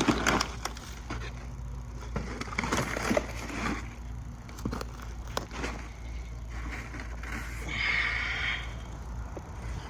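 Digging through the soil of a potato grow box: scattered scrapes, knocks and rustles, with a longer scraping rustle about eight seconds in, over a steady low rumble.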